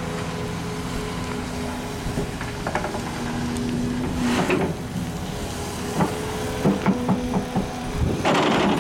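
Volvo EC380E L crawler excavator's diesel engine running steadily. Several sharp knocks come from the working machine a little past the middle. Near the end there is a short rush of sand pouring out of its screening bucket.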